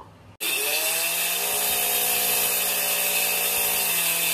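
Handheld angle grinder running on a red laminated board: it starts suddenly about half a second in, its pitch climbing briefly as the disc spins up, then holds a loud, steady whine.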